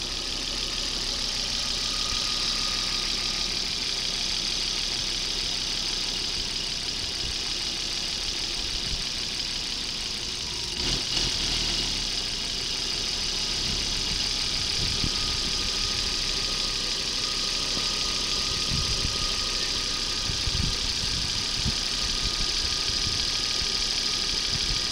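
2001 Volvo V70's five-cylinder engine idling steadily with the hood open, an even run with a steady hiss over it and a brief louder patch about eleven seconds in.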